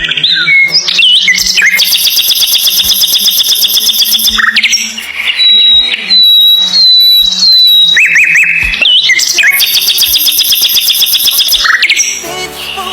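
Songbird singing loudly: two long, rapid trills, with a few short, high whistled notes between them.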